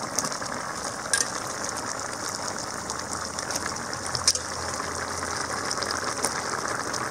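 Potato gravy bubbling at the boil in a metal kadai, a steady wet hiss, as cut brinjal pieces are added. A few sharp knocks about a second in and again after about four and six seconds.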